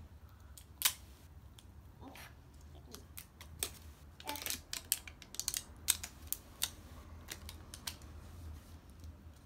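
Thin plastic wrap crackling and snapping in short, irregular clicks as fingers pick at and peel the outer layer off an L.O.L. Surprise ball, busiest around the middle.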